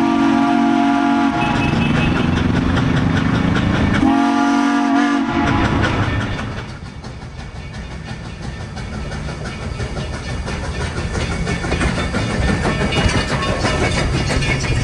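A narrow-gauge train's locomotive sounds two blasts: a long one that ends about a second in and a shorter one around four seconds in. The train then rolls past with a rumble and a rhythmic clatter of wheels over the rail joints, growing louder toward the end.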